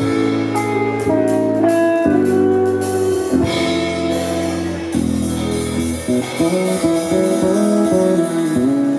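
Instrumental music: a melody of held notes moving over sustained chords.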